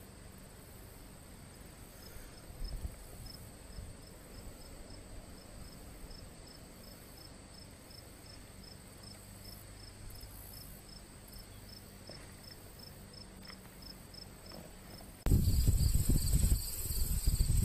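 An insect chirping steadily in the grass, a short high chirp repeating about three times a second, with a few soft knocks about three seconds in. About fifteen seconds in, a loud low rumble cuts in suddenly and runs on, the loudest sound here.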